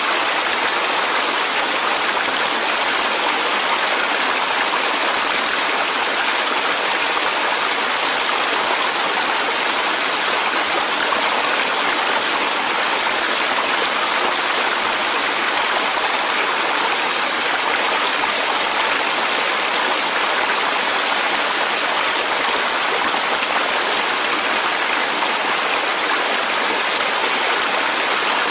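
Clear mountain valley stream running steadily over rocks, an even hiss of flowing water that does not change.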